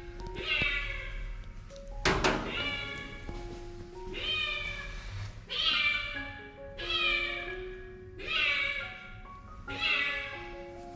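A cat meowing over and over, about seven long calls that each fall in pitch, roughly one every second and a half, as it is held for an injection. Background music plays underneath, and a single knock sounds about two seconds in.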